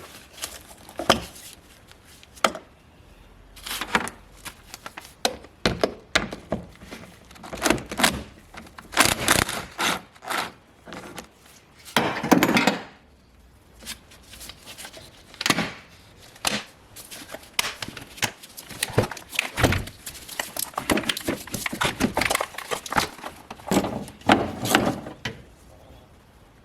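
Irregular knocks, clicks and short rattles of hand work on an engine: the air cleaner housing being unclipped, loosened and lifted out.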